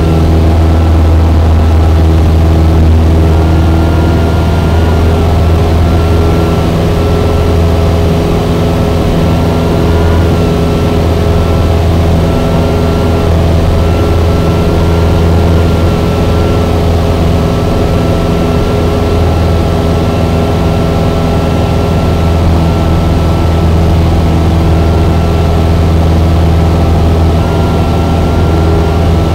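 Cessna 172's piston engine and propeller droning steadily in flight, heard inside the cabin: a loud, even low hum with a thin high tone that wavers slightly in pitch above it.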